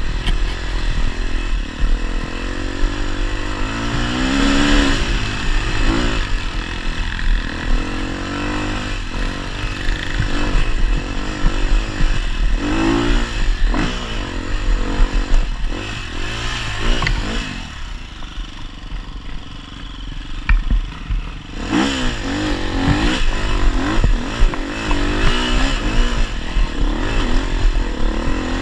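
Off-road dirt bike engine revving up and down over and over as the rider works the throttle on a steep dirt trail climb. About two-thirds of the way in the revs fall to a low, steady note for a few seconds, then pick up again.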